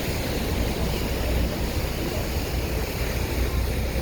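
Tour boat under way: a steady low rumble of the engine and water rushing past the hull, with wind buffeting the microphone.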